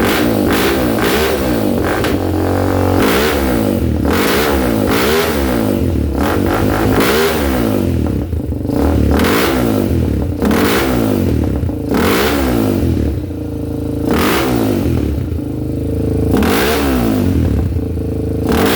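Honda 400EX quad's single-cylinder four-stroke engine running and being revved over and over, its pitch rising and falling about once a second, just after its stuck carburettor float was freed.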